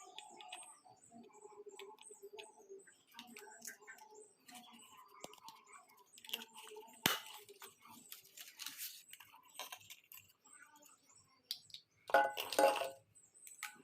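Light clicks and small metallic clinks of hand tools and parts being handled during soldering work on an LED board. There is one sharp click about seven seconds in, and a louder cluster of clinks near the end.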